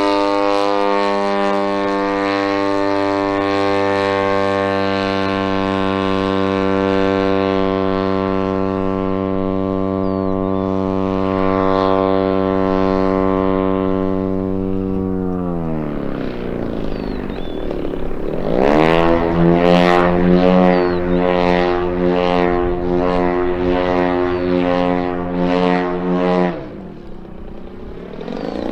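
Giant-scale RC Yak 54's DA-120 twin-cylinder two-stroke petrol engine and propeller running at a steady high throttle, throttled back about halfway through with the pitch falling, revved back up a few seconds later, then cut back sharply again near the end.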